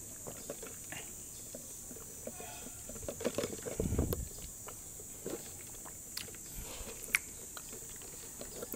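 Sipping a drink through a straw: faint sucking with scattered small clicks, and a short, louder slurp about four seconds in, over a steady high background hiss.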